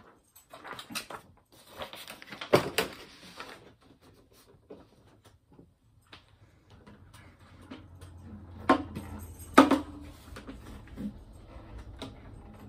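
Handling noise of a musician's gear: clicks, knocks and rustling as a metal harmonica neck holder is adjusted and an acoustic guitar is lifted and its strap put over the head. A sharp knock about two and a half seconds in is the loudest, with two more knocks later on.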